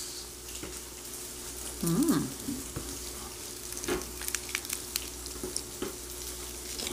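Pork belly (samgyupsal) sizzling as it cooks, a steady frying hiss broken by many small pops and clicks. A short voiced sound comes about two seconds in.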